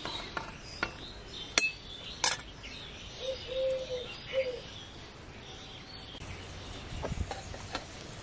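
A rooster crowing about three seconds in, one long call followed by a short one. Two sharp clinks come earlier, and a high pulsed chirping runs in the background for most of the first six seconds.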